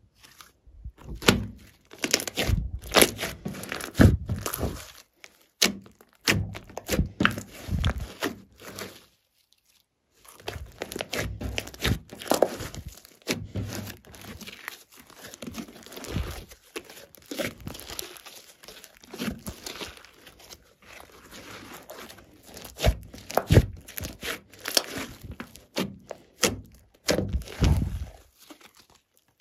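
Glossy slime being stretched, folded and squeezed by hand: a string of sticky crackles, squelches and tearing sounds, with dull thunks as it is pressed down on the wooden table. There is a brief pause about nine seconds in.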